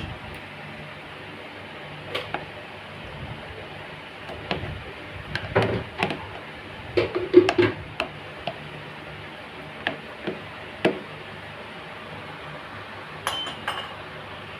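Steel spoon tapping and scraping against a plastic food box as custard is spread over vermicelli: scattered clicks and knocks, bunched together in the middle, with a brief ringing clink near the end. A low steady hum runs underneath.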